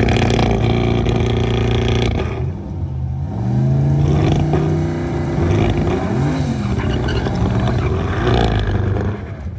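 Drag car engine running loud and steady, then its pitch dips and climbs about three seconds in, and it revs up and down for the rest.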